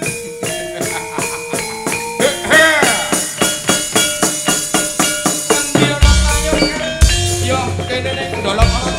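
Javanese gamelan playing tayub dance music. Struck bronze metallophones ring out in a steady run of notes that quickens about two and a half seconds in. Deep kendang drum strokes come in loudly about six seconds in.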